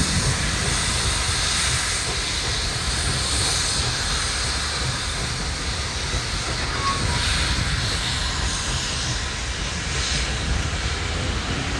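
Steam locomotive hauling a train of ore hopper cars: a steady low rumble of the cars rolling on the rails, mixed with the rushing sound of the locomotive working.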